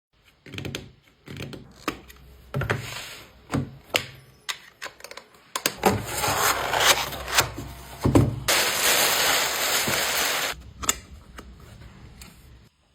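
Jewelry being packed by hand: a quick string of clicks, taps and rustles of packaging. About eight and a half seconds in comes a steady hissing noise lasting about two seconds, then lighter handling sounds.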